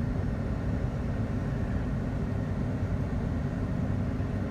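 A car running, a steady low rumble without breaks.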